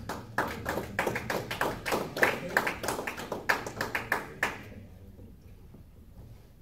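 A small audience clapping in a scattered way for about four and a half seconds, then dying away.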